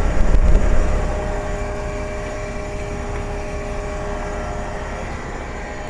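3-ton Luxaire Acclimate heat pump outdoor unit running in cooling mode: the steady whoosh of the condenser fan and the hum of the compressor, with two steady humming tones over a low rumble. The rumble is strongest in the first second and then eases off a little.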